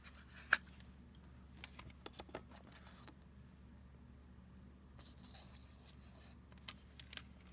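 Plastic CD jewel case being handled: scattered light clicks and taps of the case and disc under the fingers, the sharpest about half a second in and a quick cluster around two seconds.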